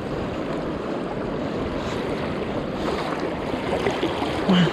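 Steady rush of a high, fast-flowing river current.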